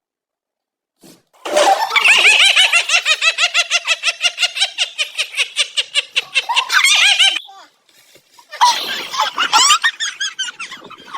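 High-pitched, breathless laughter in a long run of rapid pulses, several per second, starting about a second and a half in. It breaks off for a moment and then resumes near the end.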